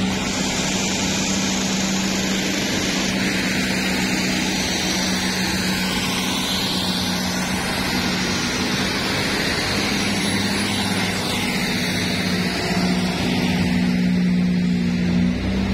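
Daewoo diesel railcar train moving past at close range, its diesel engines giving a steady low hum over a broad rolling rumble.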